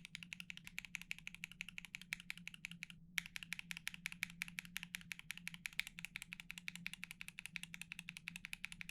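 Fast continuous typing on a Kei R1 custom mechanical keyboard with lubed Sangria switches, GMK Apollo keycaps and an aluminium full plate. It makes a dense run of key clacks, about ten a second, with one short break about three seconds in.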